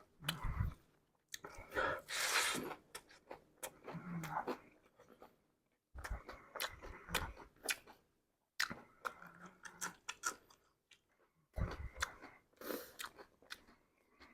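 Close-miked chewing of a mouthful of chatpate, with crunching of puffed rice and sev, in irregular bursts of crackling separated by short pauses.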